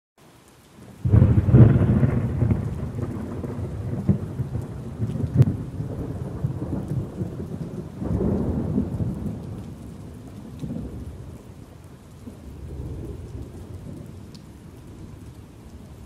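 Thunder over steady rain: a loud clap breaks about a second in and rolls on as a low rumble, a second peal swells around eight seconds, and the thunder dies away to a faint rumble under the rain.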